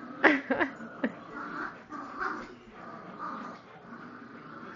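Dogs playing tug of war over a rope toy: a quick run of short, high yips with falling pitch about a quarter second in, one more near the one-second mark, then quieter.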